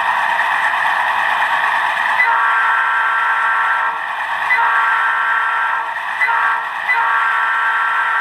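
An HO-scale C39-8 model diesel locomotive's sound decoder, playing a steady diesel engine sound through the model's small speaker, then sounding its multi-chime air horn about two seconds in: long, long, short, long, the grade-crossing signal.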